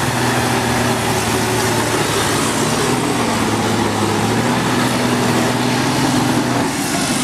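Diesel engine of a loaded tanker truck labouring at low revs as it crawls through deep mud, a steady low drone whose note falls away shortly before the end.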